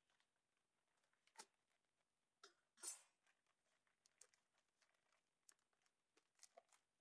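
Near silence with faint handling noises: a few light clicks and taps, and a brief rustle about three seconds in, the loudest sound.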